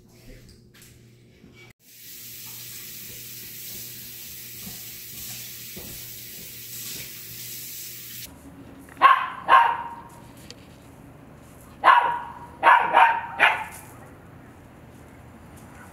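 Husky barking: two sharp barks, then a run of about four more a couple of seconds later. A steady hiss runs for several seconds before them.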